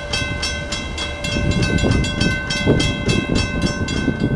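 Railroad crossing warning bell ringing steadily at about five strikes a second while the crossing gate lowers, over a low rumble; the bell cuts off near the end as the gate comes down.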